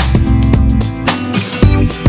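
Instrumental background music with a steady beat and a bass line.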